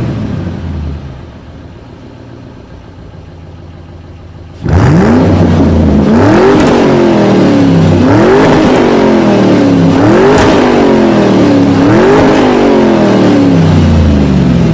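2023 Lamborghini supercar engine: revs fall away to a quieter idle, then about five seconds in it is suddenly revved hard and blipped repeatedly, its pitch rising and falling about every two seconds, easing off near the end.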